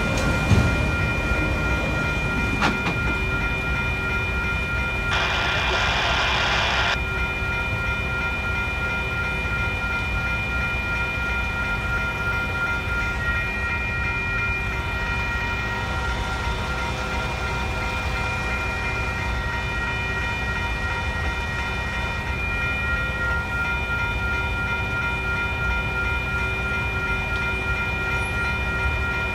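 Railroad crossing warning bell ringing steadily while the signals flash, over the low rumble of the last freight cars of an autorack train passing in the first couple of seconds. A hiss lasting about two seconds comes about five seconds in.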